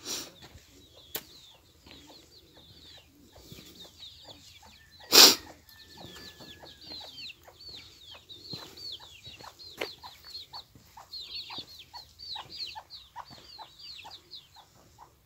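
Farmyard chickens: many rapid, high, falling peeps with some lower short clucks. There is one short, loud rush of noise about five seconds in.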